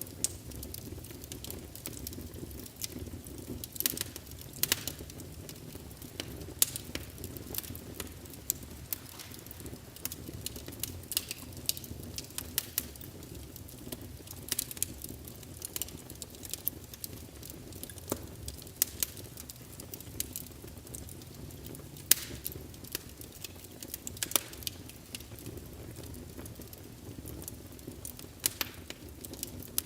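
Wood fire in a fireplace crackling and popping: a steady low rumble of the flames with frequent irregular sharp snaps.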